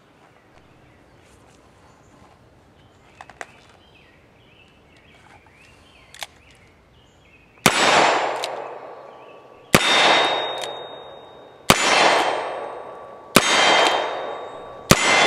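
Colt Bisley single-action revolver in .38 Special firing five shots about two seconds apart, starting about halfway in. Each shot is followed by the ring of a hit on a steel target. Before the shooting there are only a few faint clicks.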